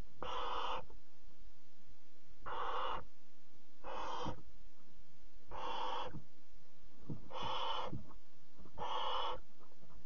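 Barn owl nestlings begging with raspy, hissing snore calls: six hisses, about one every second and a half.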